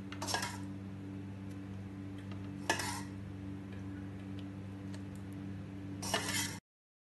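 A ladle scraping against a steel pan in three short strokes as thick gravy is scooped out and poured, over a steady low hum. The sound cuts off suddenly near the end.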